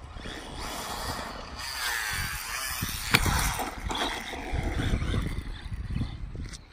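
Electric RC car running on a dirt track: the motor whine rises and falls with the throttle over the rasp of the tyres, with one sharp knock about three seconds in.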